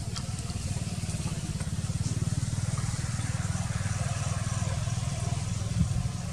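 A small engine, motorcycle-like, running steadily as an even low pulsing hum, with one short low thump near the end.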